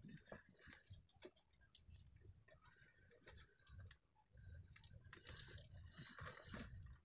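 Near silence, with faint scattered clicks and soft rustles close to the microphone.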